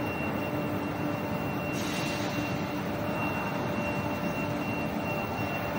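Electric mold flipper's motor and chain drive running steadily, a constant mechanical noise with a thin high steady tone over it; a little more hiss joins about two seconds in.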